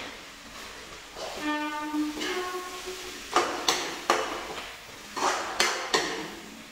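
Steel ladle scraping and knocking against a kadhai while sliced onions are stirred, with several sharp clatters in the second half.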